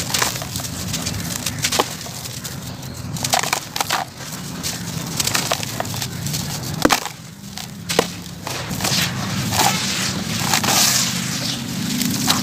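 Hands crumbling and squeezing lumps of dry sand-cement in a basin: a dense crunching and crackling, with two sharp snaps about seven and eight seconds in. Near the end the mix is wet with water and starts to squish.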